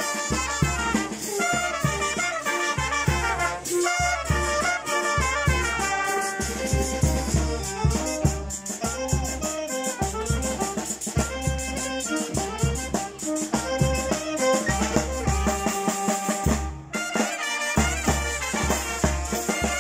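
Brass band playing a dance tune: trumpets lead over saxophones, with a steady drum beat and cymbal crashes. The music breaks off for a moment about three-quarters of the way through, then carries on.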